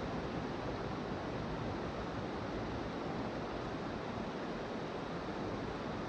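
Creek water rushing steadily over stones at the bank, an even continuous wash.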